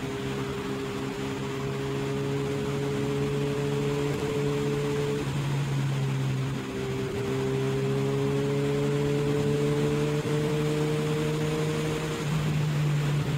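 Motorcycle engine running steadily at cruising speed, with wind rushing past. The note dips briefly about six and a half seconds in, then rises slowly in pitch as the bike gathers speed.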